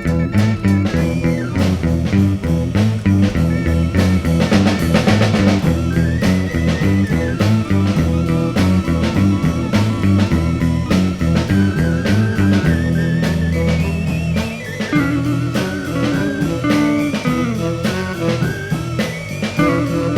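Instrumental 1960s beat-band music: a repeating bass and guitar riff over a drum kit, with a lead line from organ or saxophone above it. It is recorded dry, without reverb, played live in a single take.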